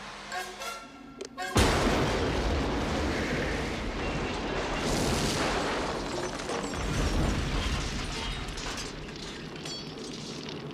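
A car bomb of plastic explosive going off about a second and a half in: a sudden loud blast, followed by a long, slowly fading after-noise with scattered clatter, under film score music.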